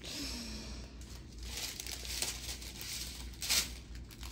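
Clear plastic packaging crinkling as it is handled and shifted, the rustle coming and going, with its loudest crinkle about three and a half seconds in.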